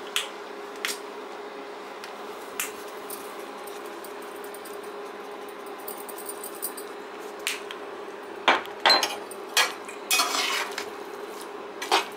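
A metal slotted spoon scraping and clinking against an aluminium kadhai as thick pasta is stirred, in quick bursts from about two-thirds of the way in. Before that, only a few light clicks over a steady low hum.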